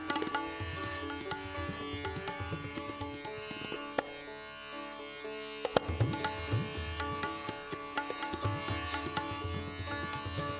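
Indian classical instrumental music: a sitar plucking a melody over a steady drone, with low tabla strokes. It softens briefly a little past the middle, then comes back in with a sharp pluck.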